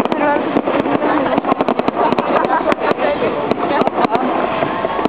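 Aerial fireworks display: an irregular, rapid string of sharp bangs and crackles from bursting shells, with people's voices mixed in.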